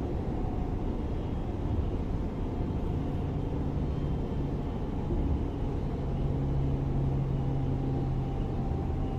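Class 425 electric multiple unit running: a steady low rumble with an electric hum from its traction drive that grows stronger about two and a half seconds in and then holds.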